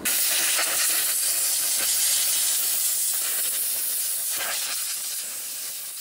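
Compressed-air blow gun hissing steadily as it blasts dirt and debris off an engine's valve cover, tapering slightly near the end.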